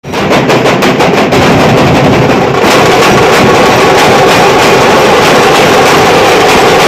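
Procession drums and hand cymbals played very loud in a fast, even beat that soon thickens into a dense, continuous din of drumming and clashing.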